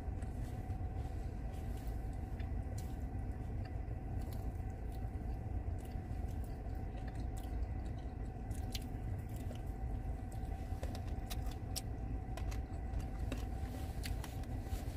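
Steady low rumble of a car idling, heard from inside the cabin, with scattered small clicks and taps.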